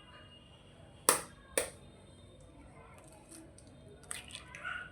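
Two sharp taps about half a second apart, followed near the end by a few faint small clicks.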